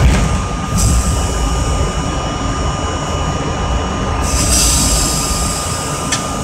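R32 subway train rolling slowly into a station, a steady low rumble with high metallic squealing that sets in about a second in and grows stronger about four seconds in.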